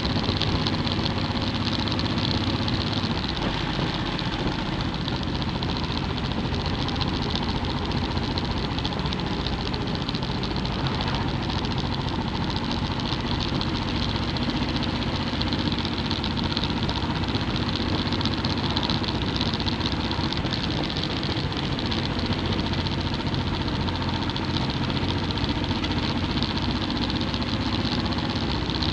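Motorcycle engine running steadily at cruising speed, mixed with continuous wind and road noise, heard from the bike being ridden.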